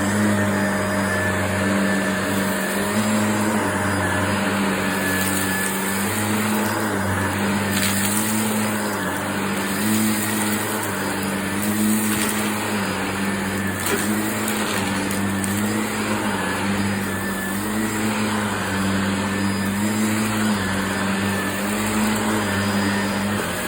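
Upright vacuum cleaner running on carpet, a steady motor hum whose pitch dips and recovers about every two seconds as it is pushed back and forth.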